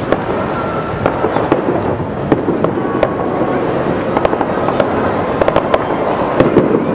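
Fireworks going off: many sharp pops and bangs, one after another, over a continuous rumble.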